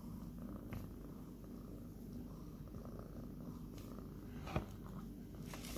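Cat purring steadily and low, close by, with one sharp tap or click a little past three-quarters of the way through.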